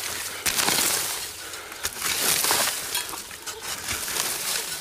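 Dry cane stalks and straw rustling and crackling in loud bursts as they are moved, with scattered snapping clicks.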